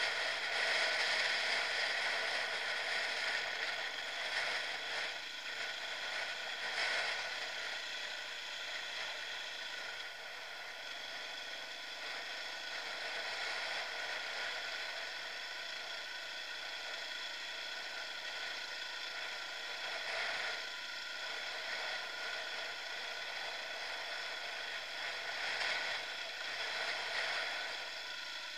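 Dirt bike engine and drivetrain running at a fairly steady pitch while riding singletrack, with louder rushes near the start and a few times later.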